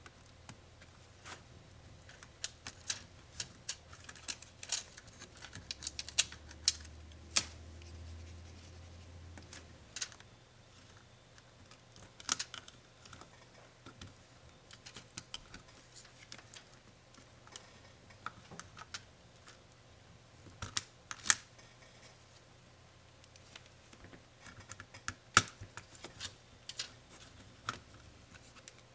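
Irregular sharp clicks and taps of small tools and the plastic and metal parts of a Lenovo ThinkPad Yoga 260 laptop being handled during disassembly. A faint low hum rises for a few seconds about a quarter of the way in.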